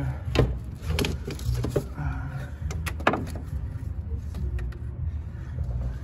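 Several sharp clicks and knocks of parts being handled in a car's engine bay, over a steady low hum.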